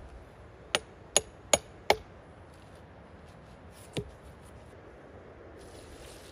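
Four quick, sharp knocks of a tool striking wood, about a third of a second apart, then one lighter knock about two seconds later.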